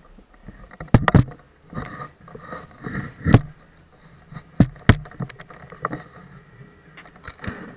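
Small motorboat underway on the water, a steady low engine hum broken by a series of sharp knocks and thumps.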